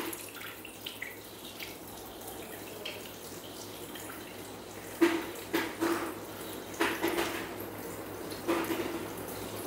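Water poured from a plastic bottle into a Thermomix TM6's stainless steel mixing bowl. It runs as a steady trickle at first, then comes in uneven gushes from about five seconds in.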